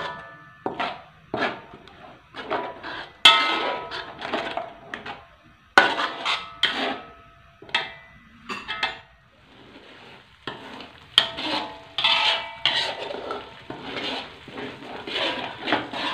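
A metal ladle scraping and clanking against an aluminium wok, with repeated stirring strokes about once or twice a second, some with a short metallic ring. A chili spice paste is being sautéed until fragrant.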